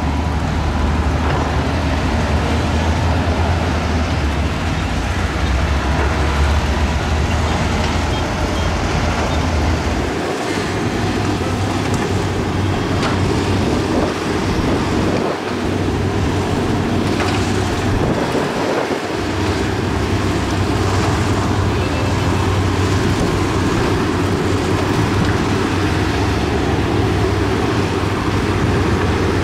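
Heavy diesel earthmoving machinery, bulldozer and excavators, running steadily with a deep engine hum and mechanical noise; the low engine note drops out briefly three times in the middle.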